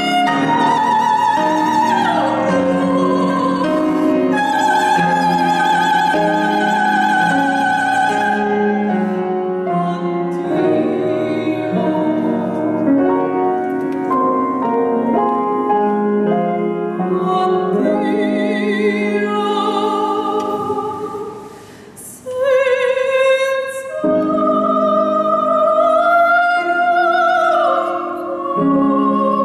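Soprano singing an operatic aria with wide vibrato, accompanied by piano. The voice breaks off briefly about twenty-one seconds in, then comes back in.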